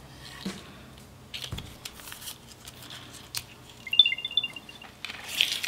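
Apple AirTag playing its short chirping start-up chime, a quick run of high beeps about four seconds in, after its battery pull tab has been removed. Light clicks and plastic rustling from handling the tag and packaging come before and after it.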